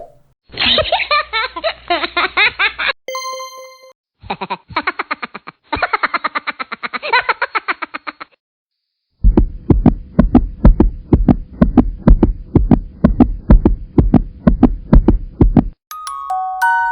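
A string of short sound-effect clips, one after another: a pulsing sound, a single bright ding about three seconds in, more pulsing, then a long run of rapid, even low beats in the second half.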